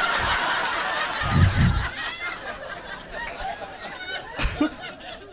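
Comedy club audience laughing at a punchline, loudest in the first two seconds and then dying down into scattered chuckles.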